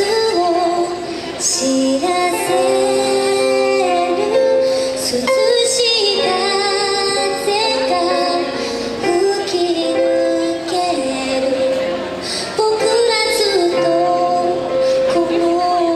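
A woman singing a ballad live with band accompaniment, her voice holding and gliding between long notes.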